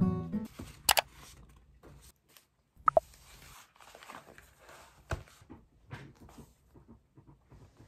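Quiet desk sounds: a few sharp taps of things set down on a wooden desk, and soft scratching and rustling of a pen writing on paper in a notebook.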